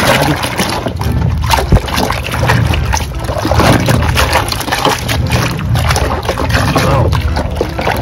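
Hand sloshing and scrubbing in a metal basin of foamy soapy water, with irregular splashes.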